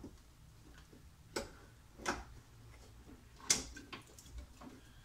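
Scattered light clicks and knocks, three of them louder, about one and a half, two and three and a half seconds in, as a Porsche 911SC's washer fluid tank and its hoses are handled and worked loose.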